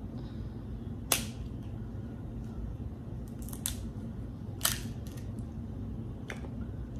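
Boiled snow crab leg shells cracked and snapped apart by hand: four sharp cracks, the loudest about a second in and another strong one past the middle, over a steady low hum.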